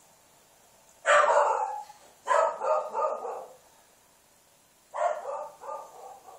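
A dog barking: three runs of loud barks, the middle one several barks in quick succession.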